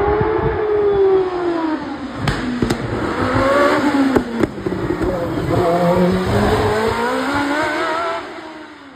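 Single-seater hillclimb race car's engine running hard through the bends, its pitch falling and rising several times as it slows and accelerates, with a few sharp cracks around the middle. It fades as the car climbs away up the hill near the end.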